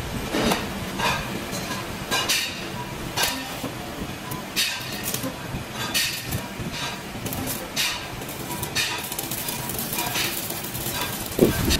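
Stick (arc) welding on a steel rickshaw-rim ring: the arc sizzling and spitting in irregular crackles, with metallic clinks as the ring and electrodes are handled. A louder noise comes in near the end.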